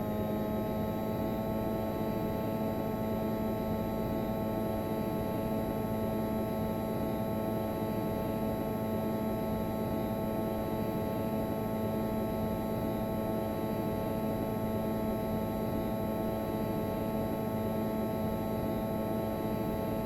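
Daikin RZUR300QY14 ducted air conditioner running steadily: a hum from the inverter compressor and fan, with several steady whining tones whose pitch rises slightly right at the start.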